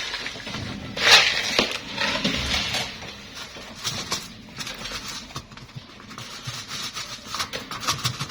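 Coarse dishwasher salt being poured into a dishwasher's salt reservoir. A loud rush of granules comes about a second in, then scattered small ticks and crackles as the grains settle.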